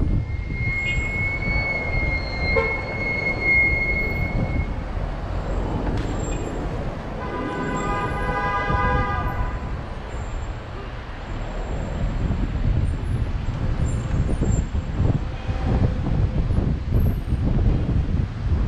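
Wind and road rumble buffeting the microphone of a moving bicycle amid traffic. A steady high-pitched tone sounds through the first four seconds, and a vehicle horn sounds for about two seconds midway.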